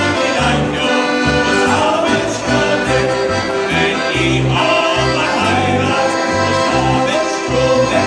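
A live band playing Bavarian-style folk music, an accordion carrying the tune over a steady, pulsing bass.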